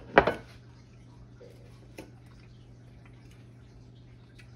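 A metal fork clinks and scrapes against a china plate as fish and grits are cut, loudest right at the start, then a few faint clicks over a steady low hum.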